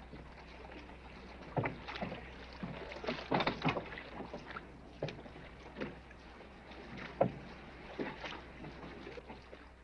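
Wooden rope-hauled river ferry under way: scattered, irregular wooden knocks and creaks from the deck and rigging, about a dozen clunks spread unevenly through the passage.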